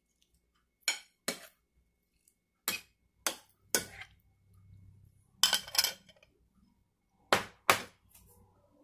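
Metal spoon clinking against a ceramic baking dish while spreading sauce over a meatloaf: about ten sharp taps, mostly in pairs.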